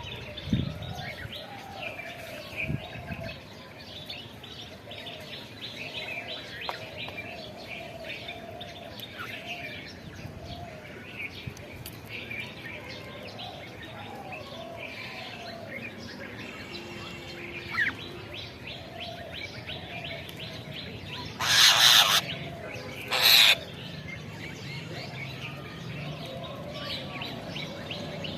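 Several birds chirping and calling, with many short high chirps over a repeated lower warbling call. About three-quarters of the way through come two loud, harsh noise bursts about a second and a half apart.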